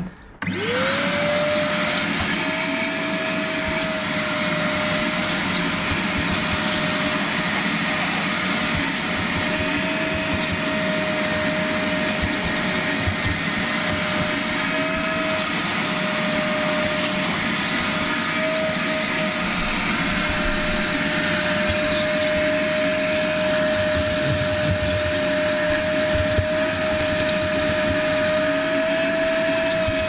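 Caramba wet-and-dry vacuum cleaner switched on, its motor spinning up within a second to a steady whine, then running evenly with a long crevice nozzle vacuuming a car's interior; the pitch wavers slightly now and then.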